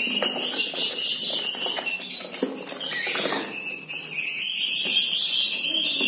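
High chirping and tinkling trills from caged songbirds, with rustles and light knocks from a taped cardboard shipping box being opened by hand.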